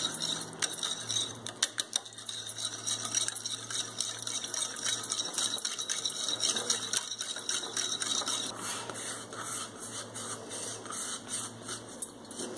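Wire balloon whisk beating butter and oil in a glass bowl: rapid, rhythmic clicking and scraping of the wires against the glass.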